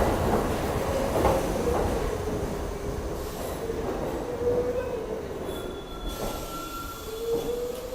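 New York City subway train moving through the station, its wheels squealing on the rails in a wavering tone over a rumble that fades away.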